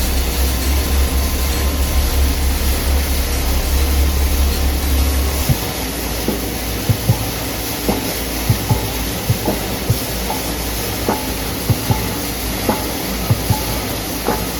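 Machinery of a copper-wire nugget plant running with a steady mechanical noise. A deep hum under it cuts off about five and a half seconds in, and after that scattered clicks and knocks are heard.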